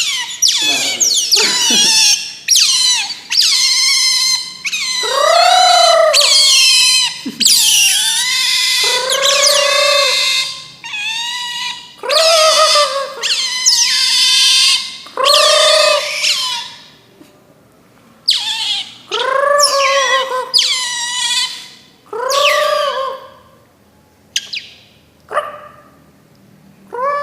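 An otter calling over and over: loud, high-pitched squealing calls, each arching up and down in pitch and lasting about a second, in quick succession. In the last third the calls come shorter and further apart.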